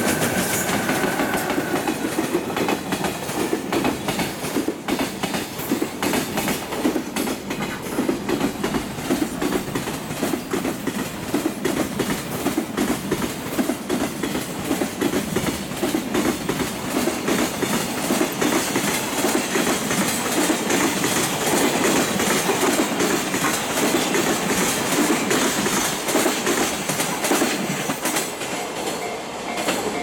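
Freight train of container wagons rolling past at speed, its wheels clattering in a steady rhythm over the rail joints.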